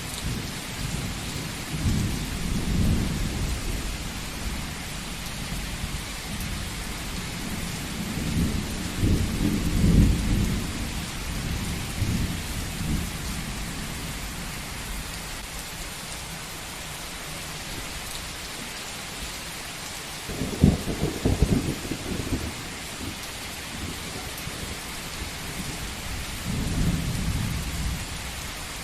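Steady heavy rain hissing, with rolling thunder rumbling several times; the sharpest, crackling clap comes about two-thirds of the way through.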